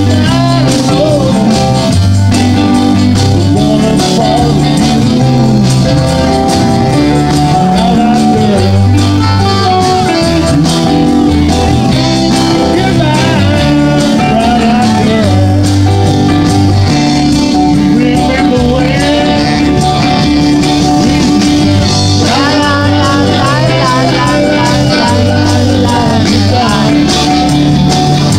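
Live band playing amplified music through a PA: drums, electric guitars and a repeating low bass line, with wavering lead melody lines.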